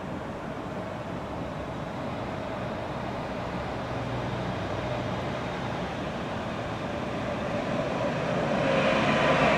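Alstom Citadis 302 low-floor tram approaching, its running noise growing steadily louder; a whine from its drive comes in near the end as it nears.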